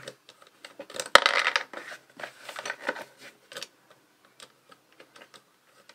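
A panel switch's threaded plastic body and nut being handled and screwed into a hole in a plastic ammo can. A sharp click about a second in, then scattered small clicks and scraping that die away about halfway through.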